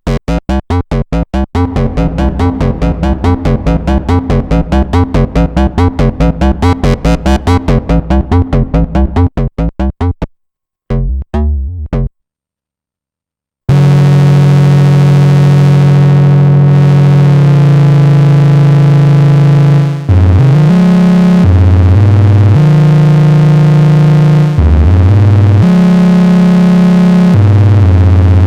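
Arturia MiniBrute 2 analog synthesizer playing a fast sequenced pattern of short notes for about ten seconds. After a brief silence it holds a loud, sustained low bass tone that steps between a few pitches.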